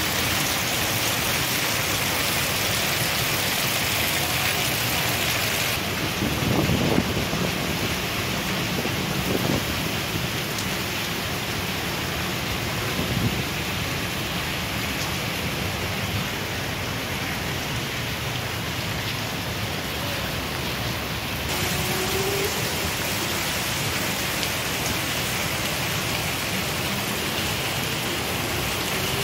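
Heavy monsoon rain pouring steadily onto the ground, with a few brief low thumps between about six and thirteen seconds in.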